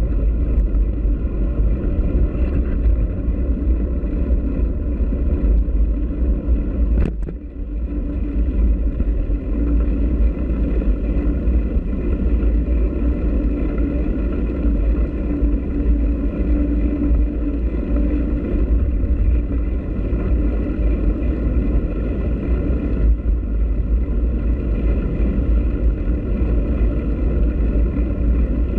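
Steady low rumble of wind buffeting a bike-mounted action camera's microphone while cycling, with one sharp knock about seven seconds in.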